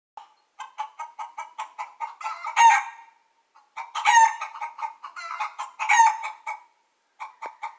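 Hen cackling: a run of quick clucks building to one loud squawk, twice, with a third run starting near the end.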